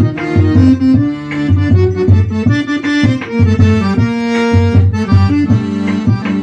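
Accordion playing a forró instrumental introduction over a pulsing bass beat.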